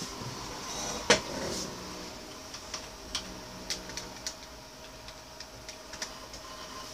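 Old PC's hard drive seeking as Windows 98 loads: irregular faint clicks over a steady hum from the running computer. There is one louder knock about a second in.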